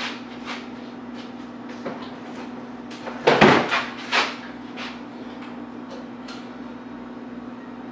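Plastic gallon milk jug being handled and opened: a few light clicks, then a short burst of crackling and scraping at the cap about three seconds in, with a smaller one a second later. A steady low hum underneath.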